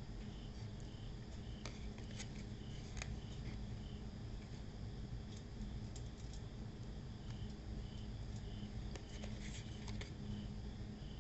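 Steady low hum with scattered faint clicks as a cardboard sardine carton is handled and turned in the hand, and a faint high chirp repeating every second or so.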